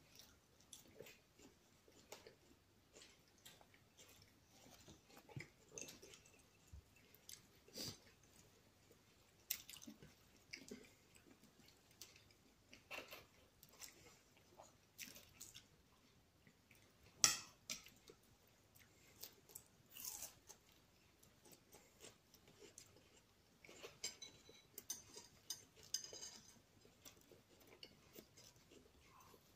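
Faint chewing and mouth smacks of a person eating bread and cured ham, with scattered soft clicks; one sharper click comes just past halfway.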